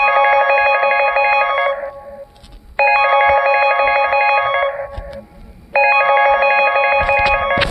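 Alcor phone ringtone imitating a telephone bell: a rapid electronic trill, ringing three times for about two seconds each with a short gap between. A few knocks come near the end.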